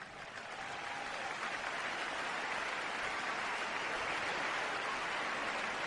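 Crowd applauding, swelling over the first couple of seconds and then holding steady.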